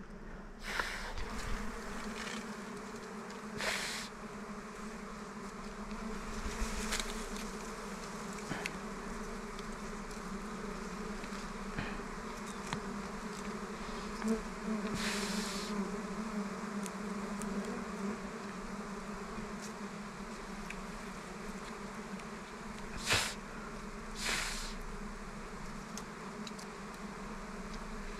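A swarm of dwarf honey bees buzzing steadily around their exposed comb as it is disturbed. A few short sharp snips and rustles come from twigs being cut away with pruning shears.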